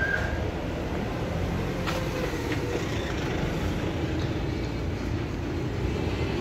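Steady low rumble of outdoor street noise.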